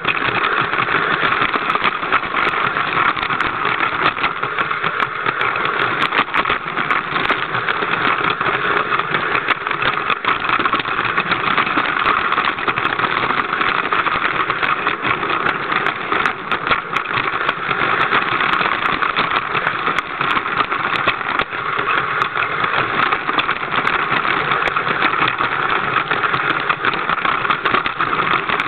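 Lego train's small electric motor running, with the wheels rattling on plastic track, heard close up from on board: a steady, loud running noise with frequent small clicks.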